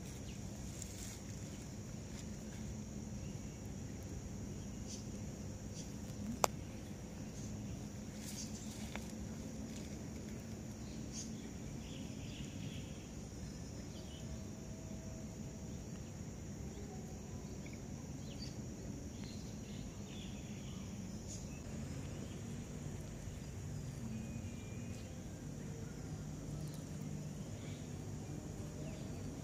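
Insects chirring in a steady high band over a low hum, with one sharp click about six seconds in.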